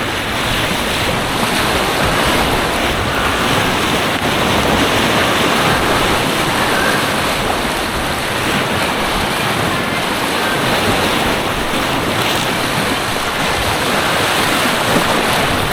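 Steady loud rush of white water on an artificial white water course.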